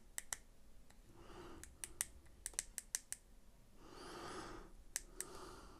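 Sharp clicks of the small buttons on an Aspire Rhea X vape mod being pressed in quick, irregular runs while its menu is scrolled, about a dozen presses in all. A few soft hissy noises come between the clicks.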